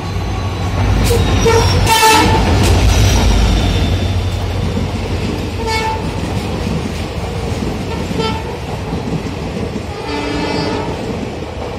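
EMD WDP-4 diesel locomotives pass close by with a heavy engine rumble, and a short horn blast sounds about two seconds in. Passenger coaches then roll past, wheels clacking over the rail joints, with a few brief tones later on.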